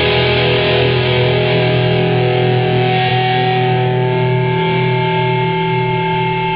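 Closing chord of a rock song: guitars hold one sustained chord that rings out without new strokes, slowly fading near the end.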